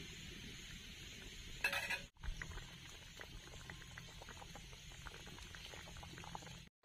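Prawn and pumpkin curry boiling in a wok, with a dense crackle of small bubbles popping. A brief scrape of the spatula comes just before two seconds in.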